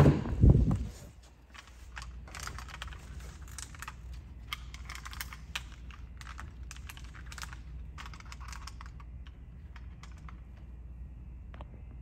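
Two heavy low thumps in the first second, then a run of light, irregular clicks and taps over a steady low hum.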